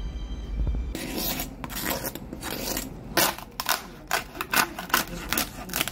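Knife cutting down through the crackling skin of a roasted pork shoulder (lechon), giving a run of irregular sharp crunches and cracks that start about a second in; the crunch is the sign of well-crisped skin.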